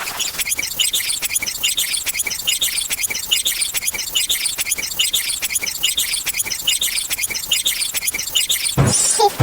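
A sped-up sound effect of rapid, high-pitched squeaks, several a second, like mouse squeaking. Near the end it switches to a different effect that opens with a low thump.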